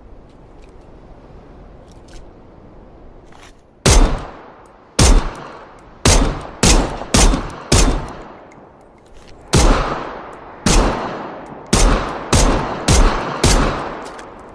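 Glock pistol firing about a dozen single shots, each a sharp crack with an echoing tail, at uneven intervals, some in quick runs of two or three. The shooting starts about four seconds in, after a stretch of low background noise.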